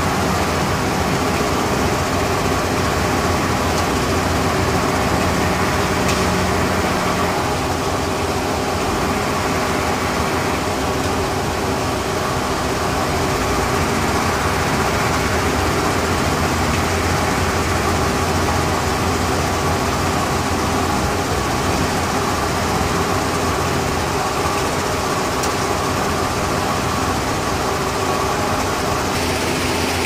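Sand-making plant machinery running steadily, belt conveyors turning with the plant's crushing and washing machines. The noise holds an even level throughout, with several steady hum tones.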